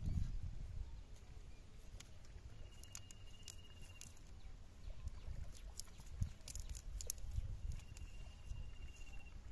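Live fish flicking in shallow water in a metal pan, giving scattered light pattering clicks and splashes over a low rumble. Twice a thin steady whistle, each about a second and a half long.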